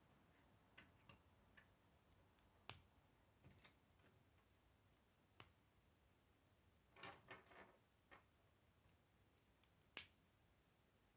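Plastic K'nex pieces clicking as rods and connectors are snapped onto a gear hub by hand: scattered sharp clicks, a short cluster of rattling clicks partway through, and one loud snap near the end.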